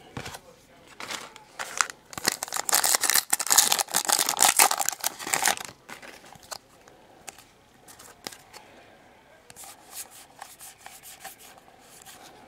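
A wrapper on a pack of Donruss football trading cards being torn open and crinkled, loud from about two seconds in to about six seconds in. After that come scattered light clicks and ticks as the cards are handled.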